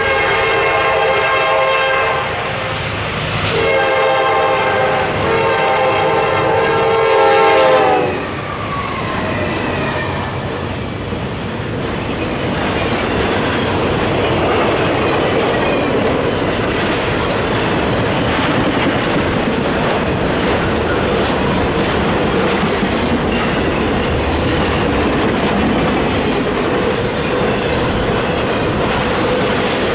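Norfolk Southern freight locomotive's air horn sounding a blast of about two seconds, then after a short gap a longer blast of about four seconds, its pitch dropping as the locomotive passes. It is followed by a fast intermodal train of trailers on flatcars rolling past, with steady wheel clatter and rumble.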